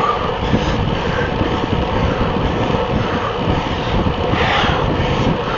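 Steady wind buffeting on a bicycle-mounted camera's microphone while riding a road bike, mixed with tyre noise on asphalt.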